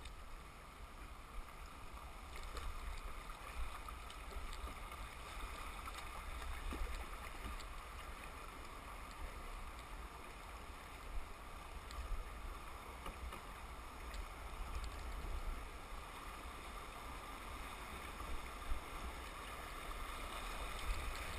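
River water rushing over shallow riffles around a moving canoe, a steady wash of sound with a low rumble underneath. A few light knocks stand out here and there.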